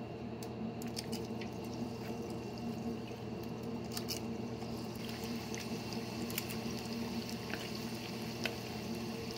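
Hot oil in a deep fryer sizzling and bubbling as scoops of hush puppy batter are dropped in, the sizzle growing fuller from about five seconds in as the baskets fill. A few sharp clicks of the metal batter scoop, the loudest about four seconds in.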